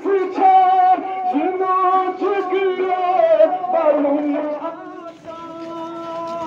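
A man's voice chanting a noha, a Shia lament, through a handheld microphone, the melody rising and falling in short phrases. Near the end he holds one long, steady note.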